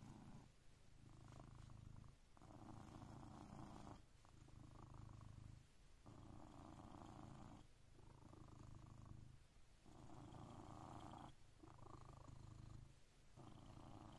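Blue British Shorthair cat purring while its chin and cheek are scratched. The soft purr swells and dips in even waves, one every second and a half or so, as the cat breathes in and out.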